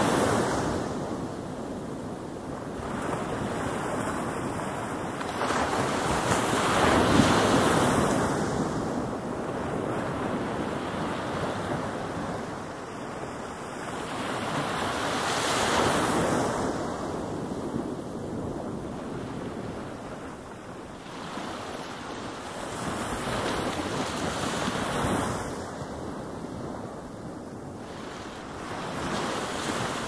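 Ocean surf: waves breaking and washing in as a steady rushing noise that swells and falls back about every eight seconds, loudest about seven seconds in.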